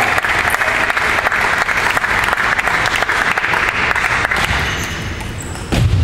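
Spectators clapping for a point just won in a table tennis match, dying down about five seconds in. A sharp knock comes near the end.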